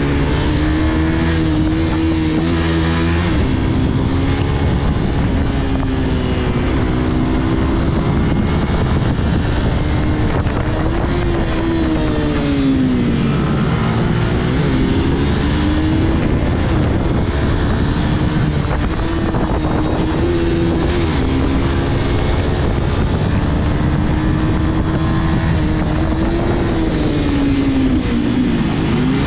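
Motorcycle engine running under way, its pitch rising and falling with the throttle and dropping sharply about halfway through and again near the end, over a steady rushing noise.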